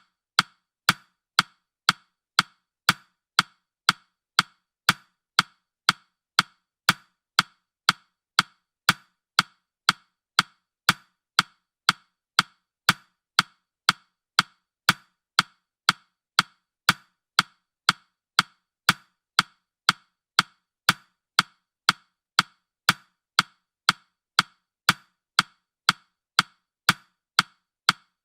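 Countdown timer's ticking sound effect: short, sharp clock ticks at an even pace of about two a second.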